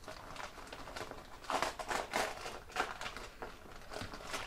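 Shiny wrapping around a small package crinkling and rustling as it is unwrapped by hand, in uneven rustles that grow louder about halfway through.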